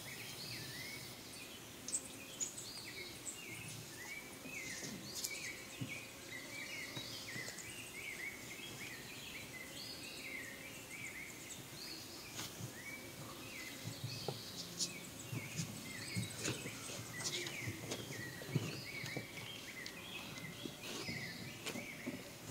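Small birds chirping over and over, short quick calls one after another against a faint outdoor hiss, with a few light knocks and rustles in the second half.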